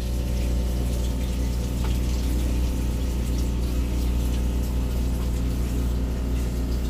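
A steady low machinery hum.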